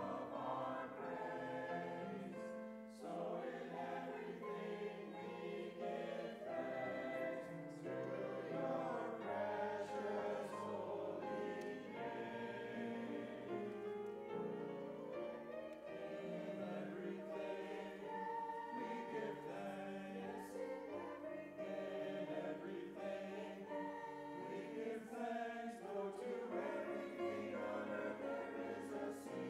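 Mixed church choir singing an anthem, with piano accompaniment.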